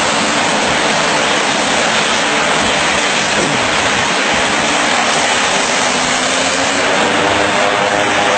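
Small propeller plane's engines running on the ground: a steady roar, with a humming engine tone growing clearer near the end.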